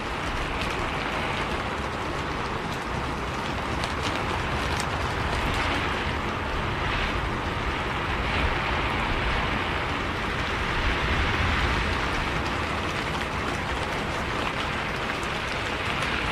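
Rain on the windows of a moving bus, heard from inside, over the steady low rumble of its engine and tyres, with scattered faint drop ticks.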